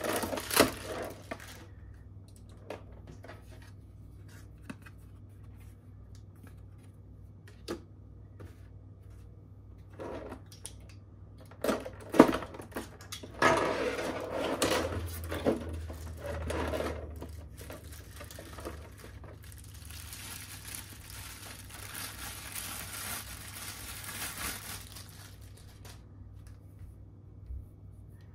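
Clear plastic bag and air-cushion packaging crinkling and rustling as a figure is worked out of it by hand, in scattered crackles with quiet gaps, a louder stretch of rustling near the middle and a steadier rustle later on.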